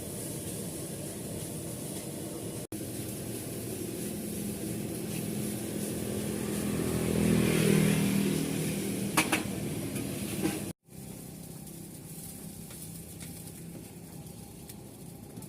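Motor vehicle passing on a street, its engine swelling to a peak about halfway through and then fading over steady traffic noise. The sound briefly cuts out twice, and it is quieter after the second break.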